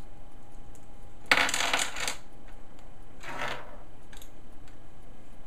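Small metal tuning weights from a Cyborg R.A.T. 7 gaming mouse clinking as they are dropped onto a desk: a sharp clatter about a second in, then a softer scrape a couple of seconds later.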